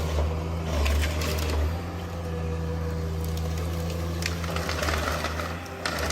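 Heavy machinery running with a steady low hum, overlaid by scattered knocks and cracks, the loudest about a second in and near the end.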